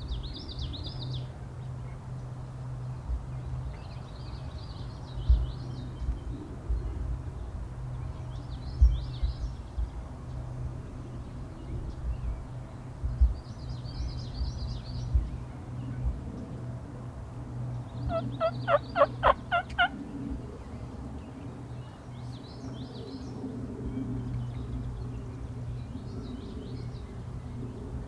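Wild turkey gobbling once about two-thirds of the way in, a rapid rattling call of about eight pulses lasting roughly two seconds. Small birds chirp faintly every few seconds, and there are a few sharp low thumps.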